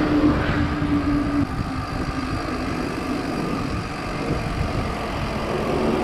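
Car traffic passing a moving bicycle, over low rumbling road and wind noise. A steady hum cuts off about a second and a half in.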